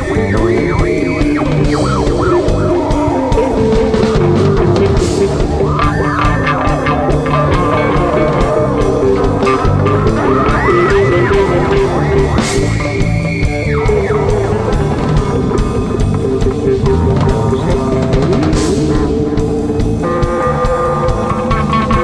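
Rock music from a band recording: drum kit and guitar playing together, with gliding, wavering guitar lines and a few cymbal crashes.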